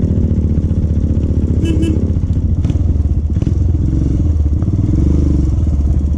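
Royal Enfield Himalayan's single-cylinder engine running through an aftermarket Akrapovic exhaust at a steady riding pace, its pitch dipping briefly about two seconds in.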